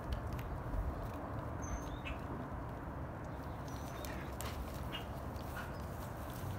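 A dog tugging, chewing and dragging a garden hose across the grass: scattered rustles and clicks over a steady background hiss. A few short, high bird chirps come through in between.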